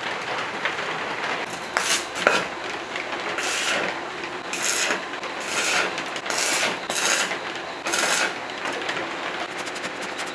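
Electric arc welding on thin steel sheet: about eight short bursts, each under half a second, as tack welds join the sheets into a box, over a steady hiss.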